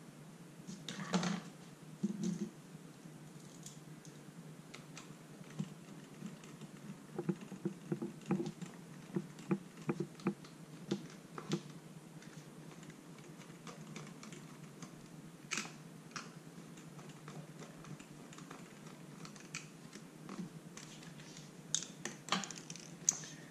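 Irregular light clicks and taps of hands handling an RC monster truck's wheels and front suspension on a tabletop, bunched most closely in the middle.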